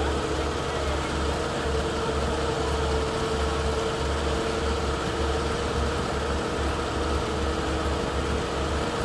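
Heavy diesel engine idling steadily, with a low even pulsing and a steady whine held above it.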